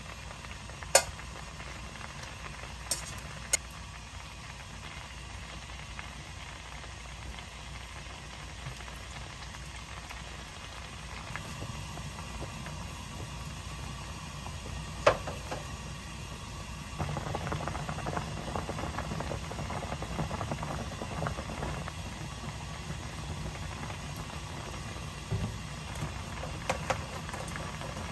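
Spicy pollack stew bubbling at a boil in a pan, with a few sharp clinks of utensils against the pan. The bubbling grows louder and busier a little past halfway.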